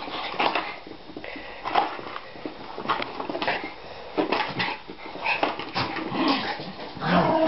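Schipperkes at play: small dogs vocalising amid a string of quick clattering knocks and rustles from the plastic bottle they are batting across the floor, with a louder dog sound near the end.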